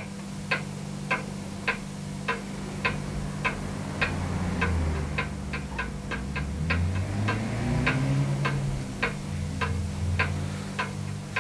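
Steady, even ticking, a little under two ticks a second, over a low steady hum with some deeper tones rising and falling beneath it.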